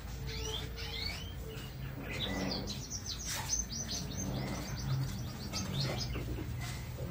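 Small birds singing: a few rising whistled notes, then a fast run of high chirps from about two and a half to six seconds in, over a steady low hum.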